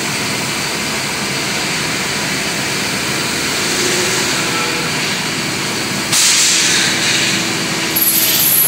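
CNC metal-spinning lathe running, its roller forming a spinning 1/8-inch aluminium blank on the mandrel, a steady machine whir. About six seconds in a louder hiss cuts in suddenly, and near the end a high-pitched whine joins it.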